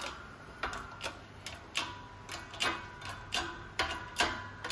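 Hydraulic shop press being worked to push a wheel stud out of a wheel hub flange: a series of short sharp clicks, about two a second.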